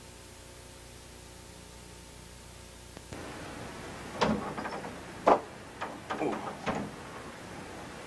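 Room tone that changes about three seconds in, then a short run of knocks and clatters over two to three seconds, the loudest a single sharp knock in the middle.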